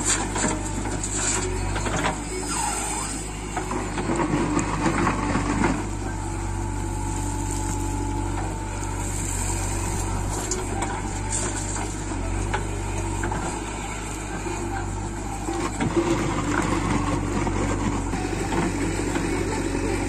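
JCB 3DX backhoe loader's diesel engine running steadily under hydraulic load as the backhoe digs and swings. Soil and clods pour from the bucket into a steel tractor trolley, making several louder rough stretches.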